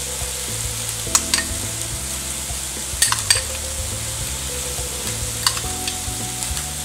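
Food sizzling in a hot frying pan as a steady hiss, with a few sharp clicks and clinks of utensils about a second in, around three seconds in and near five and a half seconds.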